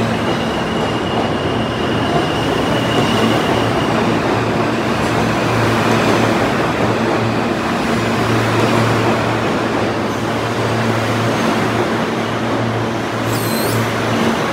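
New York City Subway R160 train running through the station with a steady, loud rumble and hum. A brief high wheel squeal near the end.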